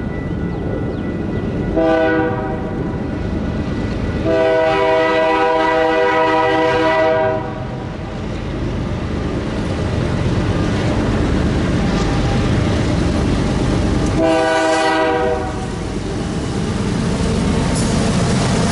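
Canadian Pacific GE AC44CW diesel locomotive leading an ethanol tank-car train sounds its horn as it approaches: a short blast, then a long blast of about three seconds, then another short blast, each a chord of several tones. Between the blasts the locomotives' engines and the wheels on the rails rumble, growing louder as the train draws near, with wheel clicking near the end.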